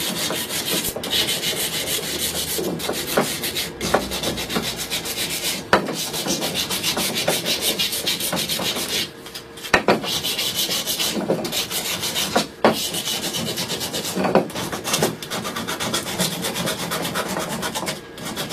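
Wooden frame-saw part being smoothed by hand: fast, steady back-and-forth abrasive rubbing on wood. It pauses briefly about nine seconds in, and there are a few knocks.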